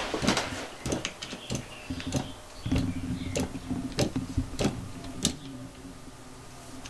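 Shurflo 4008 diaphragm water pump with its pressure switch being adjusted: irregular sharp clicks and ticks throughout, and the pump motor running with a low hum for a couple of seconds from about three seconds in. The ticking is the pump cycling on its pressure switch while the switch setting is being tuned.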